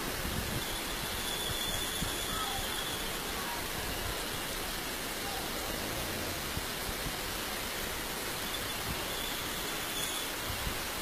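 Heavy rain falling on the street, a steady hiss with no breaks.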